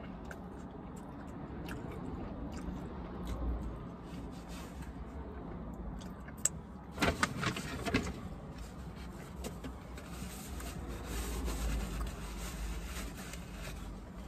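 Takeout food container and packaging being handled inside a car cabin, with small clicks and a short burst of scraping and rustling about seven seconds in, over a steady low hum.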